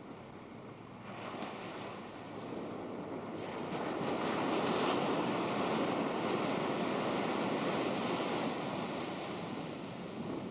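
Ocean surf on a beach: a rushing wash of breaking waves that swells about a second in, is loudest through the middle and eases near the end.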